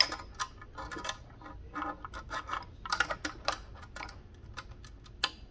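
Irregular small clicks and taps of metal and plastic parts as a needle positioner's bracket is pushed and wedged into place on an industrial sewing machine.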